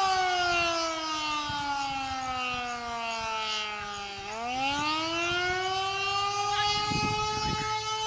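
Canadian-built Federal Signal Model 2 civil defense siren sounding the attack signal. Its single tone slides steadily down in pitch for about four seconds, then climbs quickly back up and holds steady again at full pitch.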